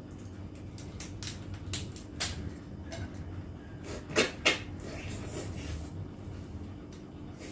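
Close-up eating sounds: a run of small clicks and cracks, then two loud sharp knocks about four seconds in, over a faint steady hum.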